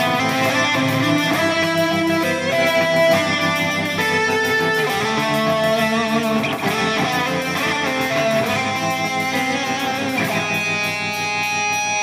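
Music: an instrumental guitar passage with no singing, guitar notes ringing and shifting melodically at a steady level.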